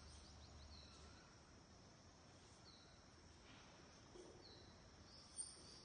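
Near silence: room tone with faint, short high bird chirps every couple of seconds, coming more often near the end, and a small tap about five seconds in.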